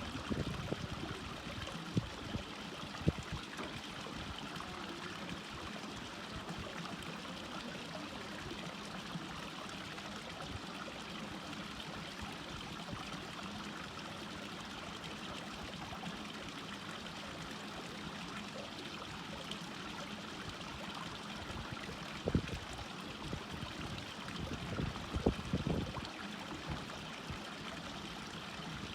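Stream water flowing steadily, with a few short low knocks and bumps, mostly in the second half.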